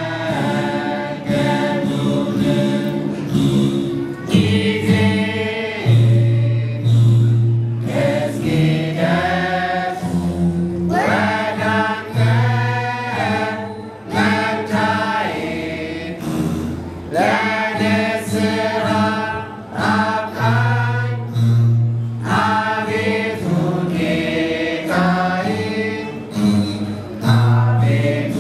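Ethiopian Orthodox begena mezmur: a group of men chanting a slow hymn together, accompanied by begena, large ten-stringed lyres plucked in deep, repeated low notes.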